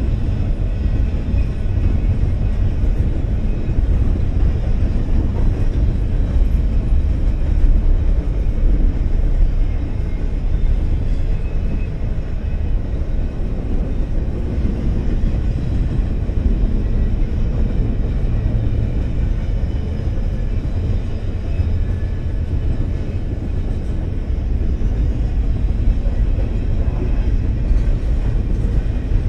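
Double-stack intermodal freight train's well cars rolling past, steel wheels on rail making a steady low rumble.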